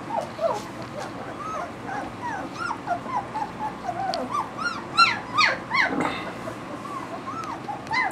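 A litter of two-and-a-half-week-old German Shepherd puppies whimpering and squeaking, with many short rising-and-falling cries several times a second that overlap. They are loudest about five to six seconds in.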